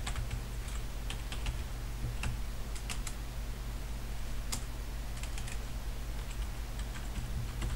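Typing on a computer keyboard: irregular runs of short key clicks over a steady low hum.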